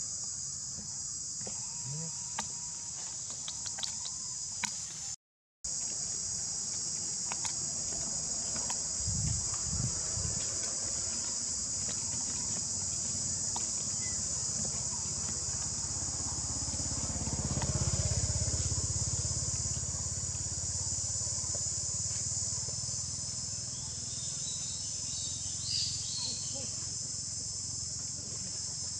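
Steady high-pitched drone of insects, with a brief dropout about five seconds in.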